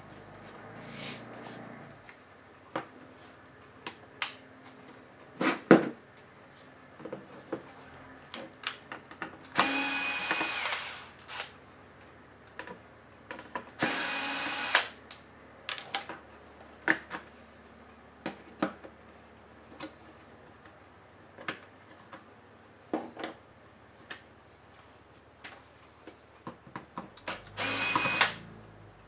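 Cordless electric screwdriver whirring in three short runs of about a second each, backing screws out of the underside of an ASUS Eee PC 701SD netbook. Sharp clicks and knocks of the plastic case and small parts being handled fall between the runs.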